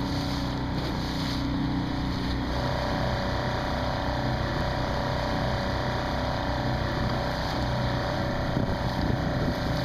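A motorized canoe's motor running steadily underway, mixed with water and wind noise on the microphone. About two and a half seconds in, a further steady hum joins it.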